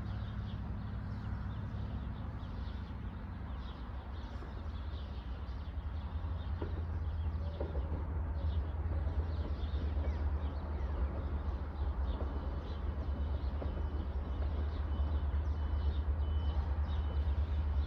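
Low, steady diesel rumble from a distant train, growing gradually louder, with small birds chirping over it.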